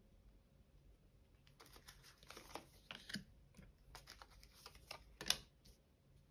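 Oracle cards being dealt one by one onto a wooden table: faint scattered taps and soft card slides, with one sharper tap a little after five seconds in.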